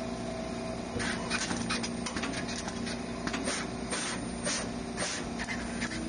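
SMT placement machine with a stacked tube feeder running: a steady hum with short hissy bursts coming irregularly, several a second, from about a second in.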